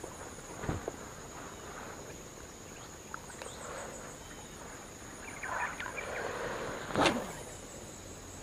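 Steady high-pitched insect drone, with footsteps rustling through long grass and one sharp knock about seven seconds in.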